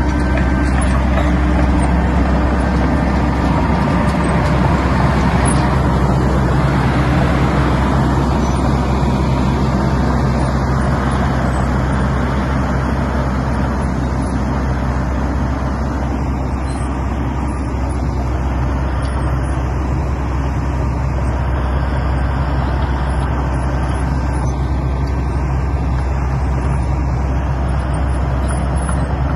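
Large diesel engine of a Wirtgen W220 cold planer running steadily, a deep even drone with a low hum that holds at the same level throughout.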